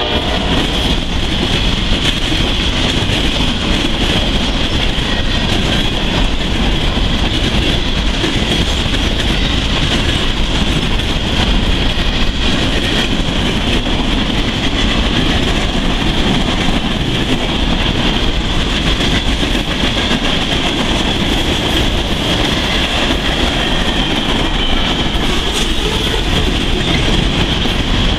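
Freight cars of a passing freight train rolling by close up: a steady rumble of steel wheels on the rails with a constant high-pitched hiss.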